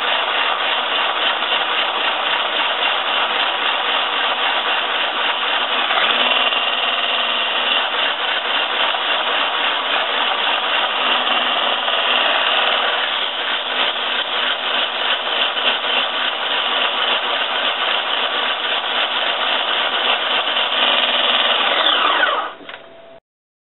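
Electric hand blender with a whisk attachment running steadily as it whips egg whites to stiff peaks in a plastic beaker. It is switched off about a second before the end, and the motor winds down with a falling pitch.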